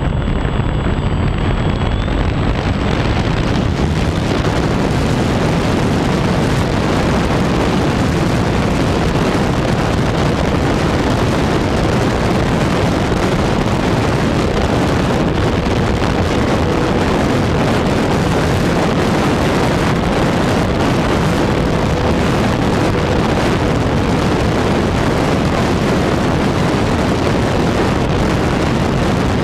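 Loud steady rush from an FMS foam RC airplane's onboard camera: propeller and motor noise mixed with wind buffeting the microphone as the plane runs at high speed.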